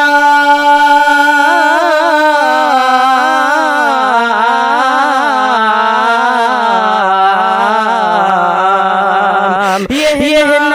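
A naat sung by a solo voice without instruments: one long, wavering, ornamented phrase drawn out on a single syllable, slowly falling in pitch. It breaks off shortly before the end as the next word, 'naam', begins.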